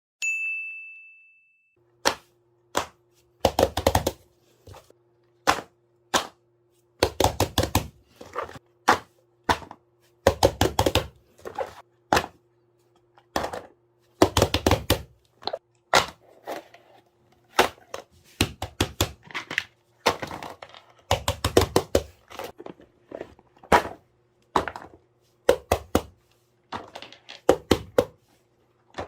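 A single ding at the start, then a long run of irregular clicks, taps and knocks from small objects being handled against a hard surface, some in quick clusters, over a faint steady hum.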